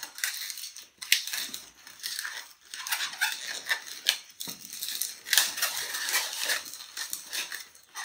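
Long latex modelling balloon being twisted into small bubbles and locks: the rubber squeaks and rubs under the hands in short, irregular bursts.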